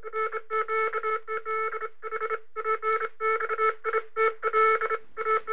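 Electronic beeping sound effect under a news intro: rapid, irregular bursts of several beep tones sounding together, a low tone under higher ones.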